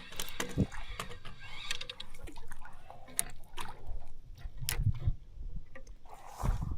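Water sloshing against a kayak's hull, with scattered knocks and clunks of gear and body on the hull.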